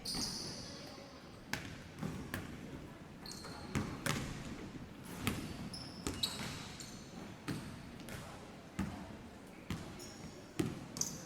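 Basketball warm-up in a sports hall: basketballs bouncing on the court at uneven intervals, about one thud every second or so, with short high sneaker squeaks now and then.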